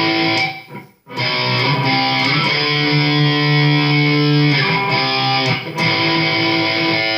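Chibson Les Paul–copy electric guitar played through its bridge pickup: chords struck and left to ring, with a short break about a second in and several chord changes after it.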